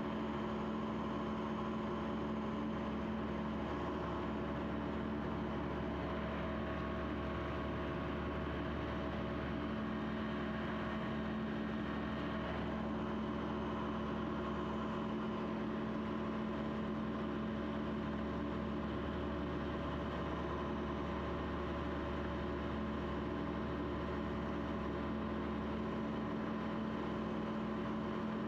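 Light aircraft's piston engine and propeller droning steadily in flight, heard from inside the cabin.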